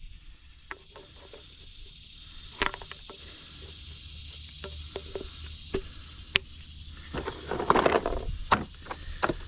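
Scattered light clicks and knocks, with a denser bout about three quarters of the way through, from handling a plastic oil bottle, funnel and cap while topping up engine oil. A steady high insect chirring runs behind it.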